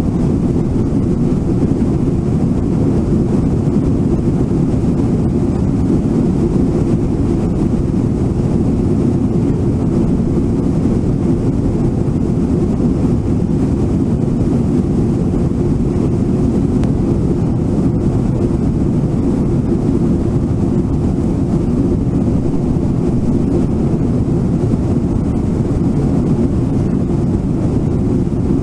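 Steady, deep rush of river rapids and a waterfall, the whitewater running on without a break.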